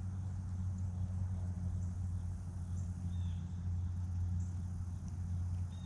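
A steady low hum runs throughout, with faint short high chirps about once a second.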